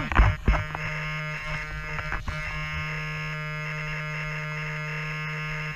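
A steady electronic buzz holding one low pitch, cutting off suddenly near the end, with a few short knocks at the start.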